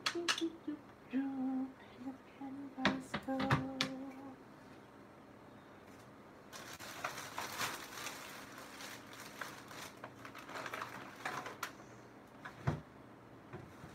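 A woman humming a few short notes over sharp clicks and taps of kitchen utensils, then, from about halfway, rustling and light knocks as she rummages at the top of the fridge.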